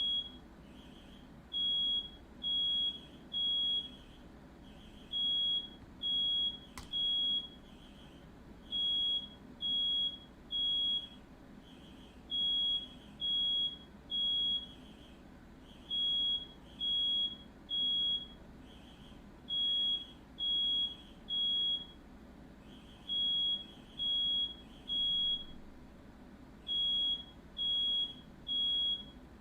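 Smoke alarm sounding in repeated groups of three loud, high-pitched beeps with a short pause between groups: the temporal-three evacuation pattern, signalling smoke from a fire started by a firework.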